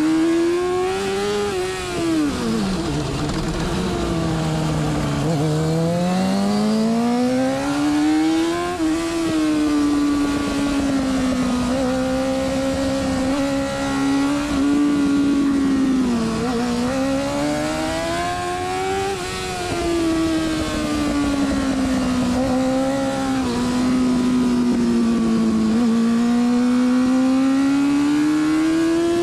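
Carburetted racing motorcycle engine under race load, its pitch climbing and falling again and again as the throttle is opened and closed through the corners. About two seconds in the pitch drops deeply and stays low for a few seconds before climbing again, over a steady rush of wind.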